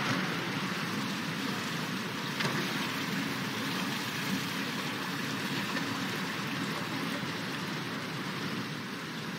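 Steady hushed ambience of an indoor swimming arena as swimmers stand on the starting blocks waiting for the start signal, with one faint click about 2.5 seconds in.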